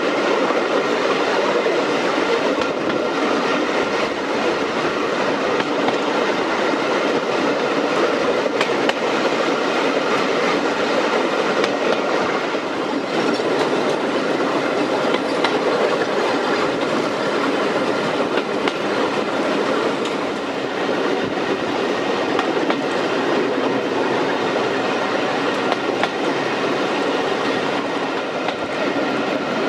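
Coaches running along the track at speed: steady wheel-on-rail running noise with occasional clicks from the rail joints.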